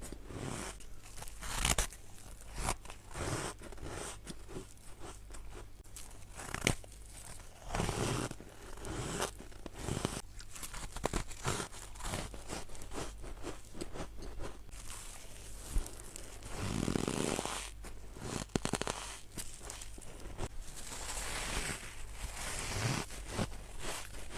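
Close-up biting and crunching of chunks of freezer frost: irregular crackling crunches with sharper individual bites now and then.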